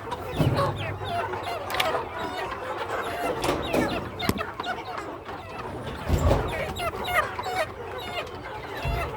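A flock of adult country chickens clucking, many short calls overlapping without pause. A few low thumps stand out, one near the start, one about six seconds in and one near the end.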